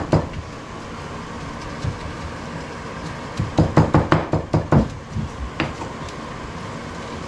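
Pestle knocking in a mortar, pounding sambol ingredients: a few single knocks, then a quick run of about eight strokes about halfway through.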